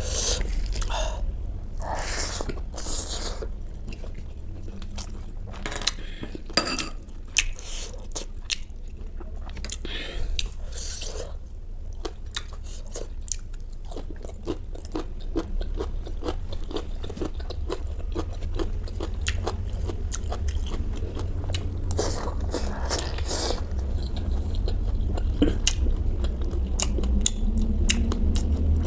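Close-miked chewing and crunching: a person biting into and chewing crunchy food, with many small irregular crackles and wet mouth sounds.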